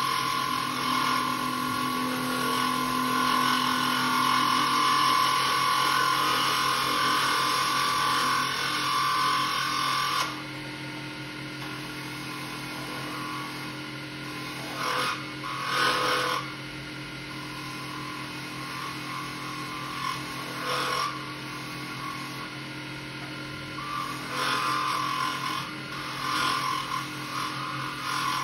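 Benchtop mini wood lathe running with a steady motor hum while a hand-held turning tool cuts a spinning glow-in-the-dark resin pen blank. There is loud, continuous cutting through about the first third, then the lathe hums on with several short, lighter cuts near the middle and toward the end.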